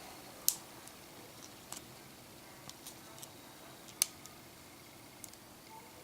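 Faint, scattered clicks and ticks of a small screwdriver working on the tiny internal screws of an iPhone, with two sharper clicks about half a second in and about four seconds in.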